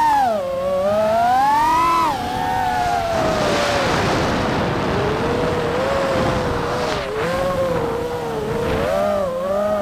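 FPV quadcopter's brushless motors and propellers whining, the pitch rising and falling with the throttle. A rush of wind noise comes in around the middle, while the pitch sits low.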